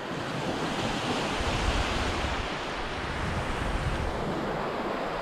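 Ocean surf breaking and washing up a sandy beach, a steady hiss of water, with wind rumbling on the microphone for a couple of seconds in the middle.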